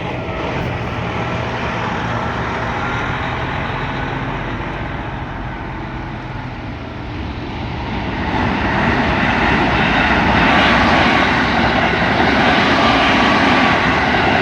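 Train running through a level crossing: a steady rumble that swells about eight seconds in as a train passes close, then stays loud.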